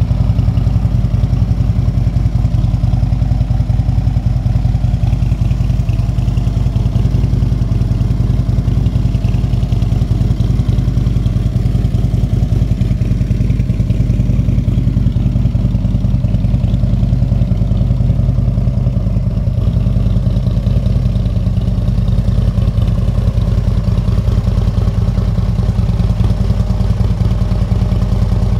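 Harley-Davidson Road King Police motorcycle's Screamin' Eagle 120 cubic inch V-twin crate engine idling steadily.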